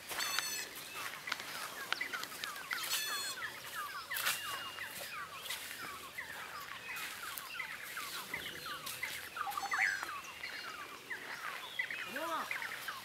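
Birds calling in the bush: many short, overlapping chirps, with a few quick high trills now and then.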